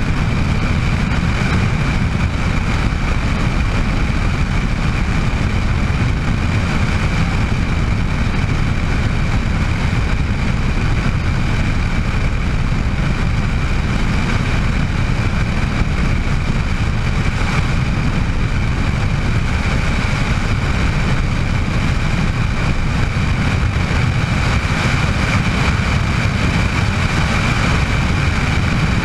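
Bell 206 JetRanger helicopter in flight: its Allison turboshaft engine and rotor make a steady low rumble with a high turbine whine held at one pitch.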